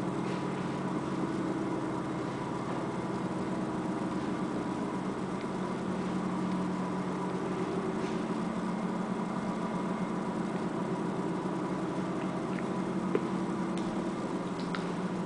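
A steady low mechanical hum with a thin, steady high tone over it, and a few faint ticks near the end.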